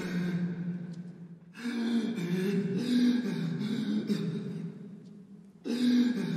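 Low, eerie horror-trailer score: a steady drone with slowly wavering tones above it. It drops away briefly about a second and a half in and again near the end, then comes back.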